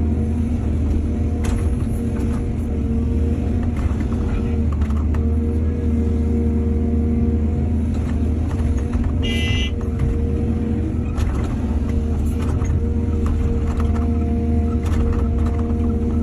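Heavy diesel engine of an excavator running steadily under load, with scattered knocks and clatter and a brief high squeal about halfway through.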